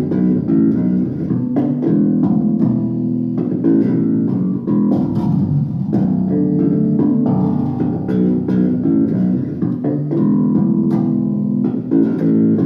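Electric bass guitar played solo, plucked notes and chords in an instrumental passage between sung lines of a song.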